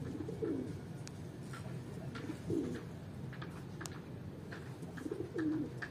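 Domestic pigeons cooing: three low, bending coos spaced a couple of seconds apart.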